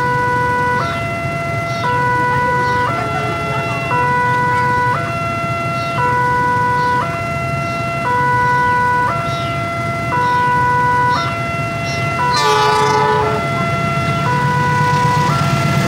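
Railway level-crossing warning alarm: an electronic two-tone signal switching back and forth between a lower and a higher note, each held about a second, over the low hum of idling engines. A short horn blast sounds about twelve seconds in, and a low rumble builds near the end as the train approaches.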